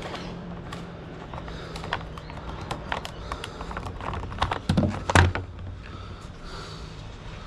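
Hands working on a Stihl MSA 160C battery chainsaw: irregular clicks and knocks of plastic and metal parts being handled, with a louder clatter about five seconds in, over a low steady hum.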